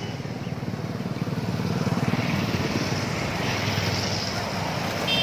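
Several small motorcycles and scooters running past in a group, their engine noise steady and growing louder about two seconds in as they come close.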